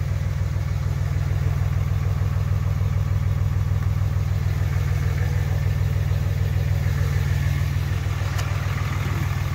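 The 5.9-litre Cummins inline-six turbo diesel of a 2006 Dodge Ram 2500 idling steadily with a low rumble.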